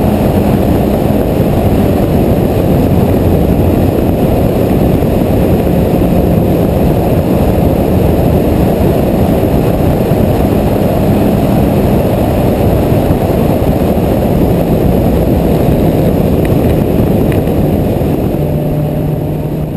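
Mini stock race car's four-cylinder engine running hard at lap speed, heard from an onboard camera under a dense, steady wash of engine, wind and road noise. Near the end the engine note steps down as the car eases off.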